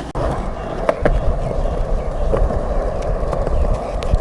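Skateboard wheels rolling steadily over pavement, a continuous rumble with a few scattered clicks.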